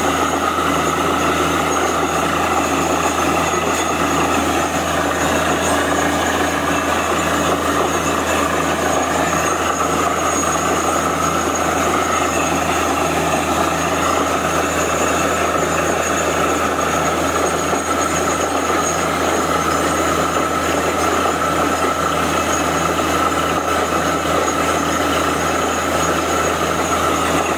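Truck-mounted borewell drilling rig running steadily while drilling, with water and muddy cuttings blown out of the borehole in a constant spray.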